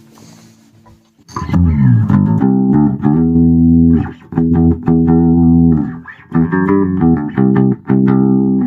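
Electric bass guitar played through a Fender Rumble 40 bass combo amp, clean and unprocessed. A faint low hum comes first, then about a second in a riff of plucked notes starts, some held and some moving quickly, in phrases broken by brief pauses.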